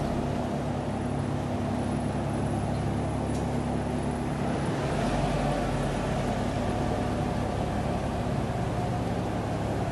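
Small farm tractor's engine running with a steady drone.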